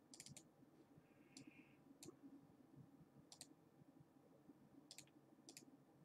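A handful of faint computer mouse clicks, some in quick pairs, spaced unevenly over near-quiet room tone.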